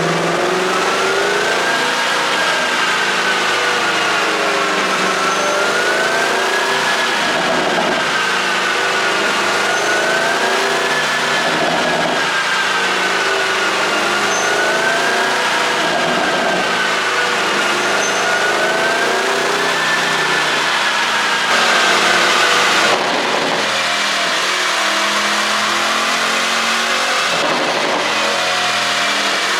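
Porsche Panamera Turbo's twin-turbo V8 engine running loud and steady, its pitch rising and falling gently in slow waves about every four seconds. It gets briefly louder about two-thirds of the way through.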